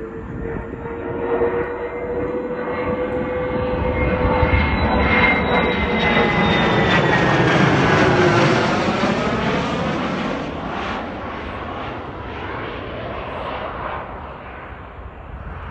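Single-engine fighter jet flying past overhead. Its engine noise builds to a peak about eight seconds in, with a whine that falls in pitch as it passes, then fades as it moves away.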